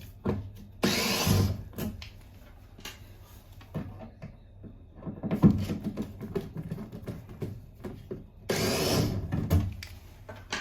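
Knocks and clicks of tools and parts being handled, with two hissing bursts about a second long, one near the start and one near the end.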